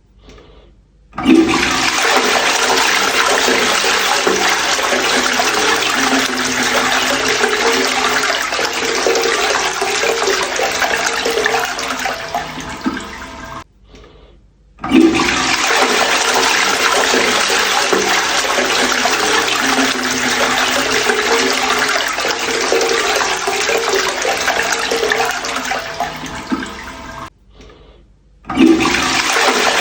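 Toilet flushing three times in a row. Each flush starts suddenly with a loud rush of water that runs about twelve seconds, tapers off and stops abruptly, with a brief quiet gap before the next. The third flush begins near the end.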